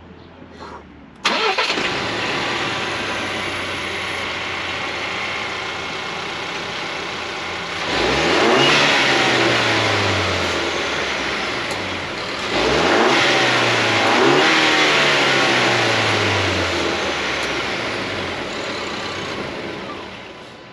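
2019 Ford Ranger's 2.3-litre EcoBoost turbocharged four-cylinder engine, on its stock air intake, comes in abruptly about a second in and idles. It is then revved twice, each rev rising quickly and falling back slowly to idle.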